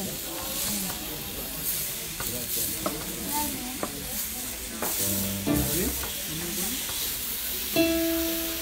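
Steak sizzling on a hot stone slab as it is sliced with a knife, with the blade and carving fork clicking and scraping against the stone.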